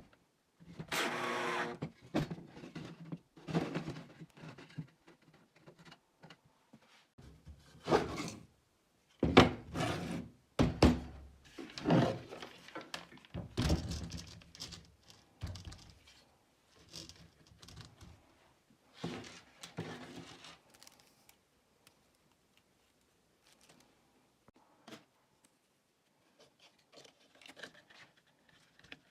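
Irregular knocks and thunks with short scraping and rubbing noises, from parts and tools being handled; they come thick for about the first twenty seconds, then only faint scattered taps.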